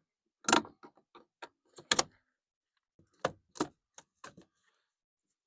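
Sharp plastic clicks and snaps, about ten in irregular bunches, as push-in trim plugs and clips are pried out of a pickup's interior door panel.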